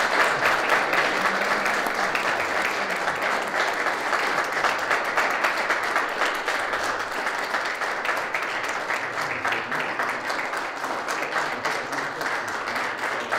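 Audience applauding: a steady crowd of hands clapping, easing off a little toward the end.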